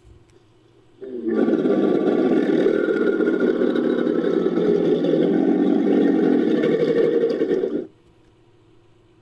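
Sound-designed Dakosaurus roar, built from mosasaur (Tylosaurus) and crocodilian sound effects: one long, rough roar of about six and a half seconds that starts about a second in and cuts off abruptly.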